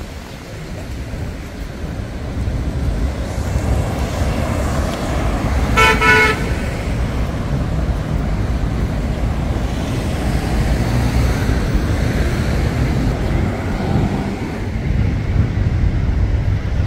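Steady low rumble of city road traffic, with one short vehicle horn toot about six seconds in.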